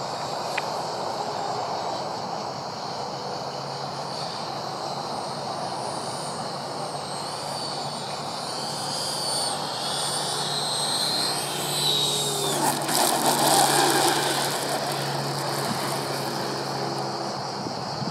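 Electric ducted-fan jet of a 1/9-scale Freewing JAS-39 Gripen model (9-blade 80 mm fan on an inrunner motor) flying: a high whine that wavers in pitch as the throttle changes, getting louder during a close low pass about twelve to fourteen seconds in, where the pitch drops as it goes by.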